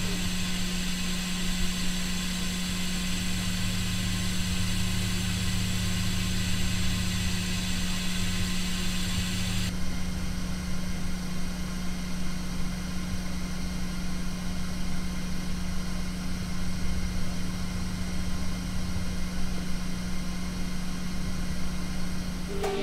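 Water flow noise through a balancing valve held at 200 kPa (2 bar) differential pressure: a steady hiss over a steady low hum. About ten seconds in, the upper part of the hiss drops away as the valve under test becomes a DN15 dynamic balancing valve passing 500 l/h, which the meter puts at about 48 dBA against about 57 dBA for the static valve.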